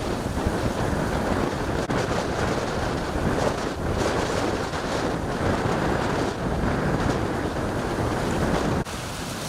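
Hurricane wind blowing hard across the microphone in a dense, gusting rush. The level drops suddenly about nine seconds in.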